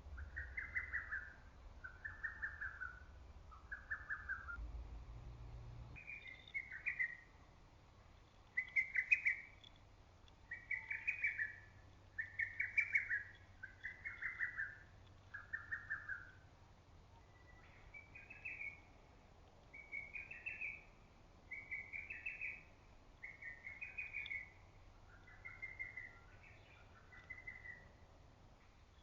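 Lesser cuckoo (hototogisu) singing its quick, clipped phrase again and again, one phrase every second or two with a few short gaps.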